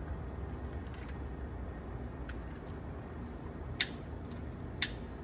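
A lighter being clicked over and over without catching: a few faint clicks, then two louder sharp clicks about a second apart near the end. The lighter is failing to light.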